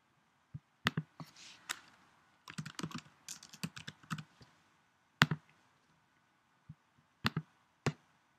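Typing on a computer keyboard: a few keystrokes, then a quick run of them, followed by a few single, sharper clicks such as a mouse button, the loudest about five seconds in.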